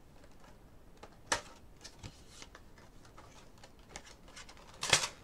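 A cardboard Funko Pop! box being opened by hand: scattered clicks and rustling of card, with a sharp snap about a second in and a louder one near the end.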